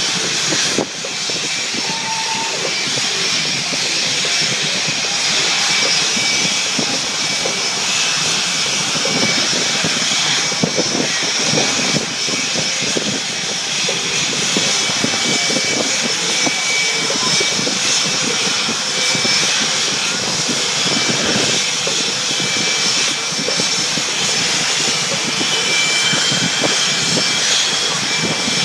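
Jet engines of a line of F/A-18 Hornets running on the ground, a steady loud noise with a high whine that rises slightly near the end.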